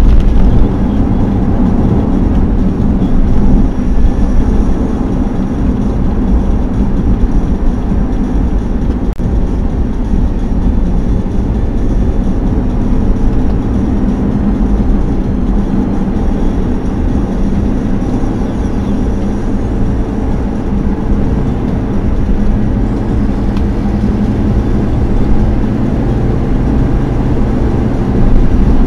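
Steady low rumble of a car driving at highway speed, heard from inside the car: tyre and road noise mixed with the engine, with no sharp events.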